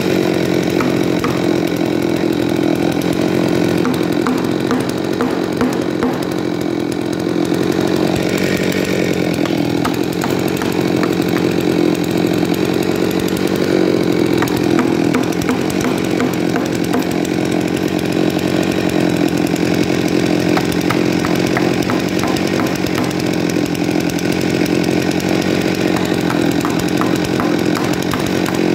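Chainsaw running steadily under load, ripping along a pine log to saw it into boards.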